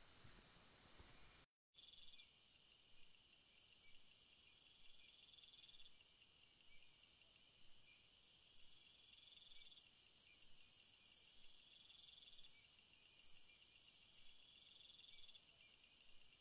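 Faint chorus of crickets chirping: several steady, evenly repeated high trills layered over one another. The sound cuts out completely for a moment about a second and a half in.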